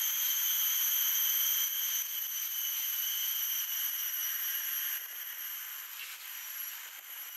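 Steady, high-pitched buzz of insects shrilling in the trees, a little quieter for the last couple of seconds.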